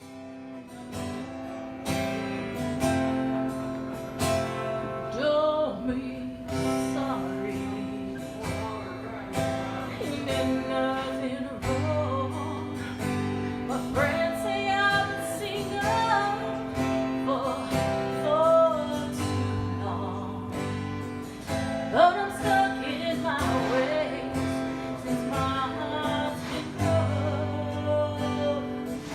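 A song: a sung melody over strummed acoustic guitar with a steady low bass, starting abruptly at the beginning.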